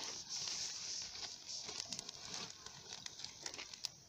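Small wood campfire of sticks crackling: a steady hiss with many quick, irregular pops.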